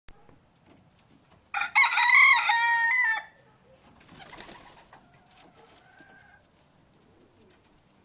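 A rooster crows once, loud and drawn out, about a second and a half in, its pitch stepping down at the end. A couple of seconds later a pigeon's wings flap briefly.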